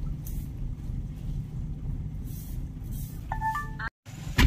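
Car idling with a steady low hum in the cabin. Near the end a short electronic phone chime of a few stepped tones plays. The sound then cuts out for a moment and a sharp click follows.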